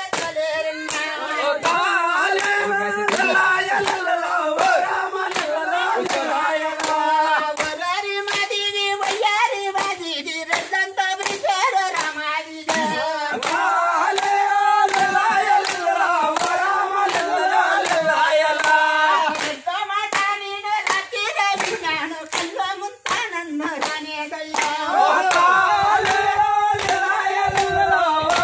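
A group of people clapping their hands in a steady rhythm while they sing together.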